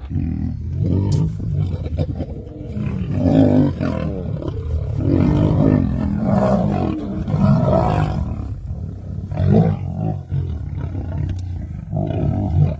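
Male lions growling and roaring in a fight, a continuous rough snarling with repeated loud surges, as three males attack a lone male.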